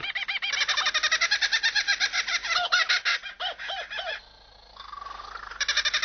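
Kookaburra laugh: a fast run of repeated rising-and-falling 'ha-ha' notes. It breaks off about four seconds in and starts up again near the end.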